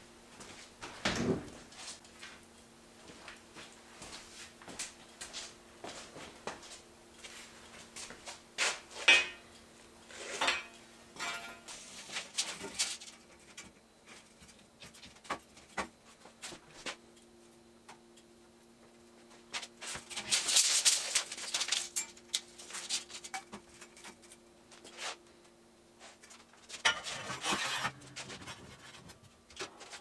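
Scattered clanks, knocks and scrapes of steel tubing and hand tools being handled on a steel welding table, with two longer scraping stretches in the second half. A faint steady hum runs underneath.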